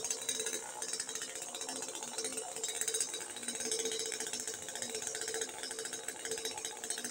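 Small two-stroke NW258 chainsaw running steadily with a fast rattling pulse, held against a tree trunk.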